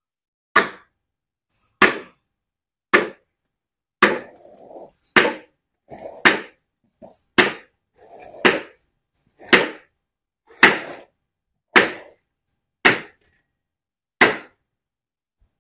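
A short sledgehammer strikes a wooden block set on top of a cylinder liner about thirteen times, a sharp knock a little over a second apart. The blows drive a new liner down into its bore in an Isuzu Panther diesel engine block.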